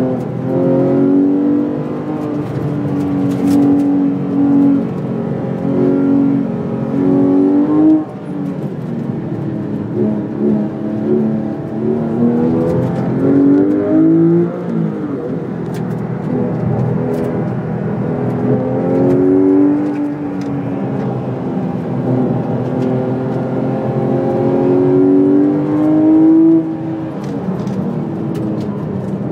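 Porsche 911 GT3 RS 4.0's naturally aspirated 4.0-litre flat-six, heard from inside the cabin at track speed. The engine note repeatedly climbs in pitch and falls back, with sudden drops about 8, 14 and 26 seconds in.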